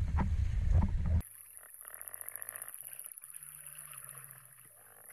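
Wind and sea rush loudly over the rowing boat's deck microphone. About a second in it cuts off suddenly to quiet, muffled underwater sound, with a faint steady high whine and soft pulsing.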